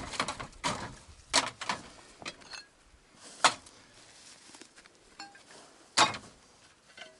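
Pieces of scrap iron, among them dug-up tank track links, clanking against each other as they are handled and dropped: about six sharp metallic knocks at irregular intervals, the loudest two about halfway through and near the end.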